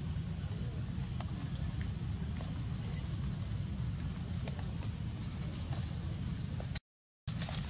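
Steady, high-pitched insect chorus with a faint even pulse, over a low rumble. The sound cuts out completely for a moment near the end.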